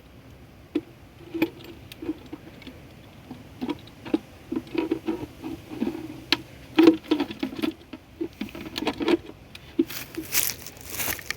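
Hands handling the plastic parts and packaging of a dual flush toilet valve: irregular clicks, taps and light knocks, with a longer, louder rustle near the end.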